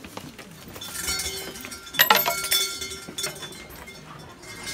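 Coins clinking into a temple's wooden offering box: a run of sharp metallic clinks, the loudest about two seconds in, each ringing on briefly.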